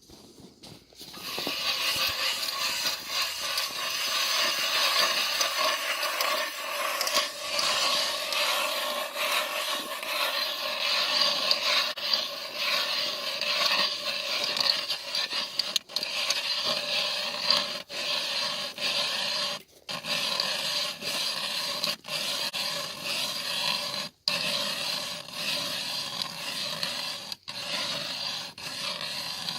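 Steady, continuous scraping on ice, broken by a few very short gaps.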